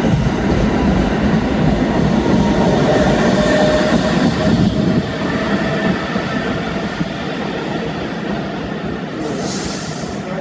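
New York City subway train running past on the track, its rumble easing off and fading over the second half as it moves away. Faint squealing tones from the wheels come through in the middle, and there is a brief hiss near the end.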